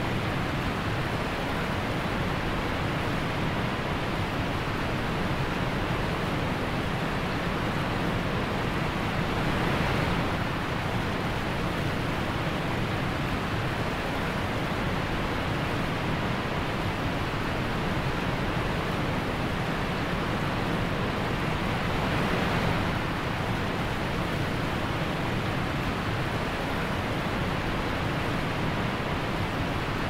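Steady rushing of a waterfall pouring into a pool, an even roar of water that swells slightly twice.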